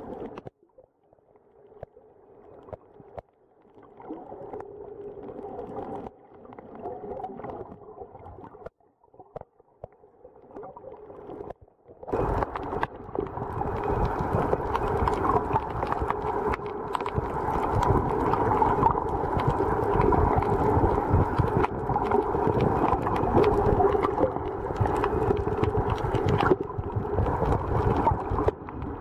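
Muffled water noise heard underwater at a snorkeller's camera: sloshing and gurgling with a steady low hum beneath. It is faint and broken at first and turns much louder and fuller about twelve seconds in.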